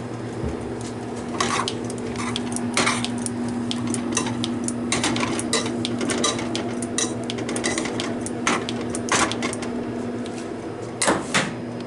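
Metal utensils clattering and knocking against pots and pans, in irregular clicks with a sharp double knock near the end, over a steady low hum.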